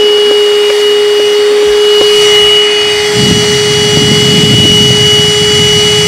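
AGARO CV1079 cordless car vacuum cleaner running with a steady high motor whine. About three seconds in, a rough low rumble joins as the extension-tube nozzle works over the car's floor mat, sucking up dirt.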